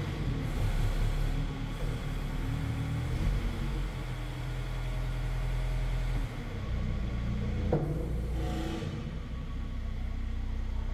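Schäffer 9530 T telehandler's diesel engine running, heard from inside the cab, its speed rising and falling as the hydraulic boom is worked. A single sharp knock comes about three-quarters of the way through.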